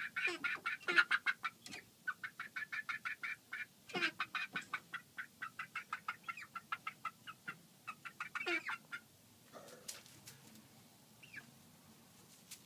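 Roosting chickens making a fast run of clucks, about seven a second, broken by a few louder calls that fall in pitch. It is the fussing of hens disturbed on the perch as they try to settle for the night. The calling dies down to a few faint sounds after about nine seconds.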